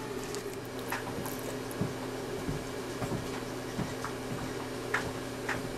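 Faint wet handling noises and small scattered clicks as gauze and a syringe are worked on a dog's open bite wounds, over a steady low hum.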